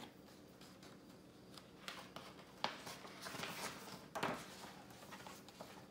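Pages of a picture book being turned by hand: a few soft paper rustles and brief handling clicks in the middle of the stretch.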